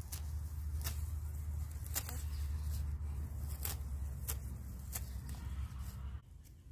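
Small knife slicing through thin green herb stalks at the base, a crisp snip roughly every second, over a steady low rumble that drops away near the end.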